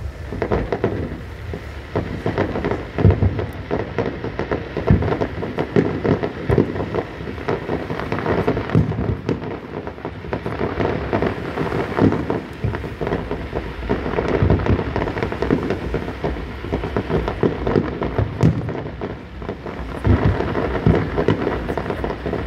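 Aerial firework shells bursting in quick succession: a continuous rattle of bangs and crackling, with heavier bangs every few seconds.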